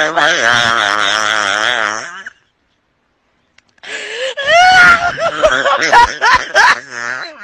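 A person's voice wailing with a wavering pitch for about two seconds, then, after a short silence, more high vocal cries with sliding pitch and choppy exclamations.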